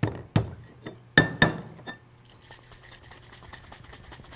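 A Boston shaker, pint glass in a metal tin, sealed with a few sharp knocks, then a dry shake without ice: a quieter, fast, even rhythm of liquid and egg white sloshing in the tin.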